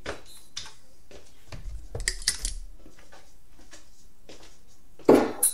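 Steel-tip darts being pulled out of a bristle dartboard and gathered in the hand: light knocks and metallic clinks, bunched about two seconds in. A short, loud burst of noise near the end.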